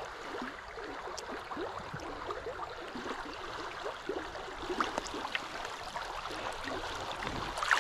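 Shallow riffle of a small creek babbling steadily, with many small gurgles through it.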